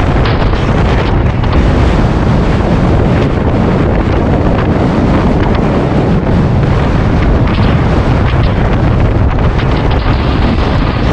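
Loud, steady wind rushing over the microphone of a camera riding along on a bicycle at speed.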